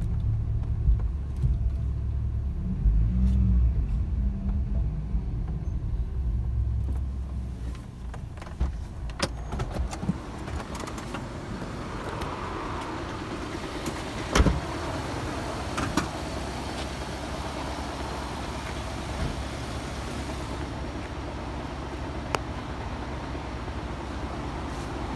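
A car's low, uneven rumble for the first several seconds. It then gives way to a steadier, fainter background hiss broken by a few sharp knocks, the loudest about halfway through.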